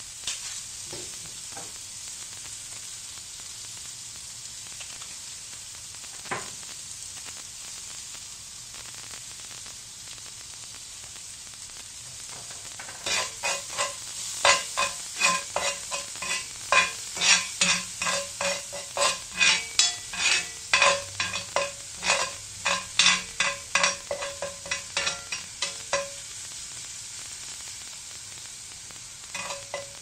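Chopped green onions sizzling in beef fat and sesame oil in a cast iron skillet, with a steady hiss. From about halfway through, a metal spoon stirs and scrapes them across the pan in quick strokes, roughly two a second, and it scrapes again near the end.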